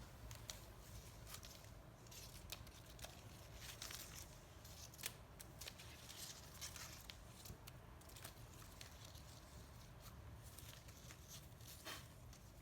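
Faint scattered tearing and crinkling noises with a few sharp clicks, over a low steady room hum.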